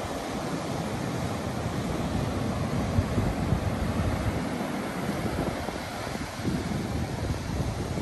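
Sea surf breaking and washing over a rocky shore as a steady rushing wash, with wind rumbling on the microphone.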